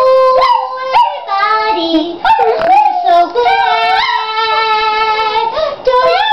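A woman singing long, sliding howl-like notes with a chihuahua howling along, the two high voices overlapping.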